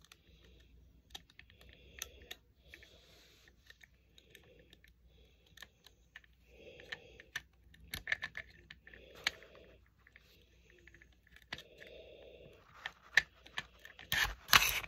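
Metal parts of a Desert Eagle .44 Magnum pistol clicking and scraping as they are handled and fitted together during reassembly. Scattered small clicks throughout, with a louder clatter near the end.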